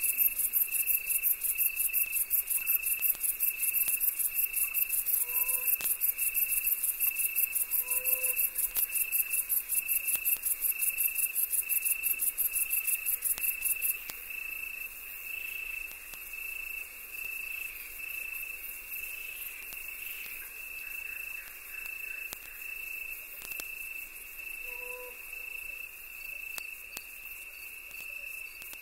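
Insect chorus of crickets: a fast, high-pitched chirring that drops in loudness about halfway through, over a steady pulsing trill. A few short low calls of another animal sound about five, eight and twenty-five seconds in.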